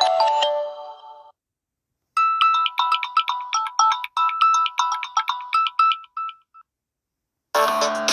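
Samsung Galaxy A30 stock ringtones playing in turn. A chiming melody fades out in the first second, a short tune of quick bright notes plays from about two to six and a half seconds, and after a brief silence a fuller electronic ringtone with a bass line starts near the end.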